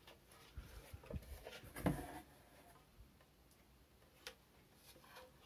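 Faint handling sounds of plastic-wrapped juicer parts being lifted from a cardboard box: soft rustles and light knocks in the first couple of seconds, then one sharper click a little after four seconds.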